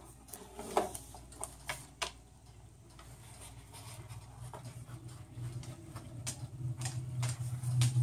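A cockatoo's beak nibbling and biting at a paper towel roll: irregular soft clicks and crinkles, with a low steady hum building through the second half.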